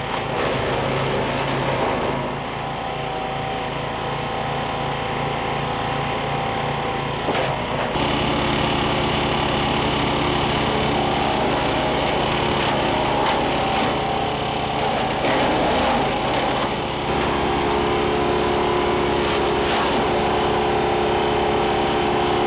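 Small gasoline engine of a wood chipper running steadily at speed while dead branches are fed into the hopper and chipped, its note shifting a couple of times as it is loaded.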